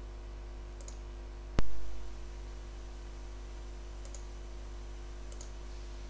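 Computer mouse and keyboard clicks while closing windows: one loud sharp click about one and a half seconds in, and a few faint clicks after it, over a steady low electrical hum.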